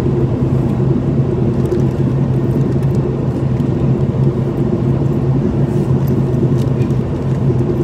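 Steady cabin drone of a Boeing 737-800 in flight, heard from inside the passenger cabin: CFM56 engine and airflow noise with a constant low hum.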